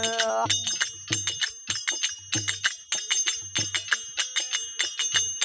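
Instrumental break in a Rajasthani folk bhajan: brass manjira hand cymbals clash in a steady ringing rhythm over dholak drum beats about every 0.6 s, with a soft harmonium note. A long held sung note ends about half a second in.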